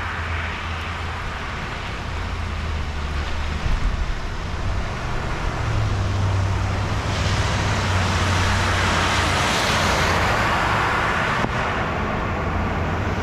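Traffic on a rain-flooded road: tyres hissing through standing water, swelling from about six seconds in and easing slightly near the end, over a steady low rumble.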